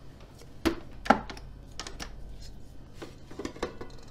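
Stand mixer being handled after kneading: its head is raised off the steel bowl, giving a series of clicks and metal clunks, the two loudest about a second in.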